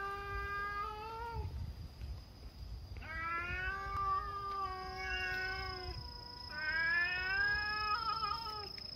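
Cats yowling at each other in a standoff: three long, drawn-out, wavering howls, the middle one about three seconds long and the last breaking into a warble near the end. It is the territorial caterwaul that two cats make when squaring off before a possible fight.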